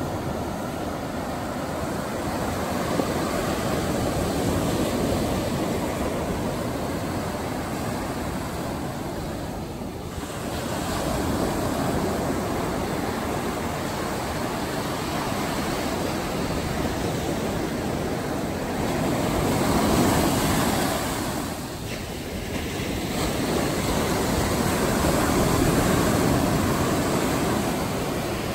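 Atlantic surf breaking close by and washing up the sand in a steady wash of noise that swells and eases with each wave every several seconds.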